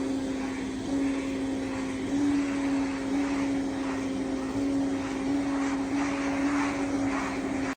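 Pet grooming vacuum running: a steady motor hum over a rush of air, its pitch stepping slightly up and down every second or so.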